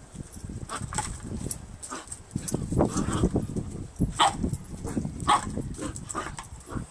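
Dog playing with a plastic bottle: irregular crackling and crunching of the plastic, with wind rumbling on the microphone.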